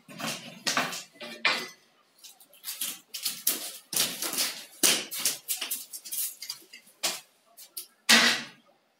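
Irregular clattering and knocking of a young Sardi sheep's hooves on a concrete pen floor as it jumps and skips about.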